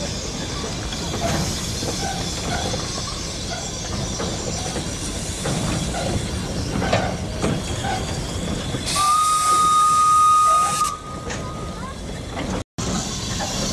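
Steam whistle of a 1908 Borsig narrow-gauge steam locomotive blowing one steady high note for about two seconds, about nine seconds in, over a steady hiss of steam.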